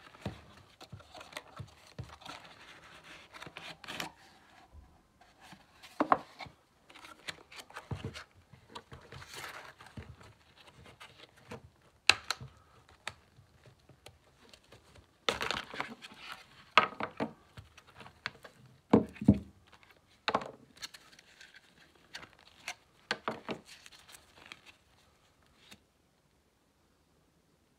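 Cardboard box and clear plastic clamshell packaging being handled and pried open by gloved hands: rustling and crinkling at first, then irregular sharp plastic clicks, snaps and knocks.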